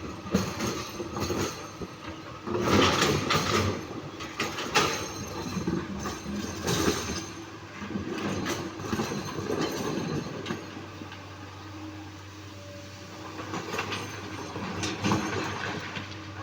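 Komatsu PC 200-8 hydraulic excavator at work: the engine runs under load with repeated clanks and knocks of the bucket handling boulders. About ten seconds in, the knocking mostly stops and a steadier engine hum remains, with a few more clanks near the end.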